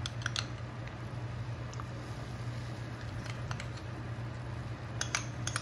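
A steady low hum with a few light clicks of a utensil, and a quick cluster of taps near the end, as tomato paste is spooned into a pan of rice and water.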